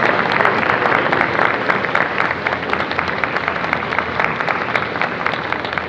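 Audience applauding: many hands clapping at once, easing off a little near the end.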